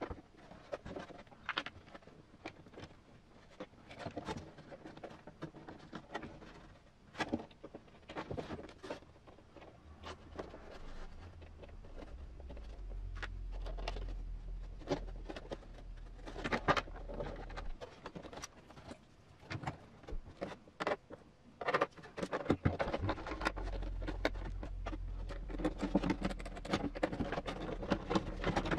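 Hard plastic parts of a 1/10-scale RC crawler body being handled and fitted together: irregular clicks, taps and light knocks, with small screws driven by hand near the end. A low hum runs underneath from about ten seconds in.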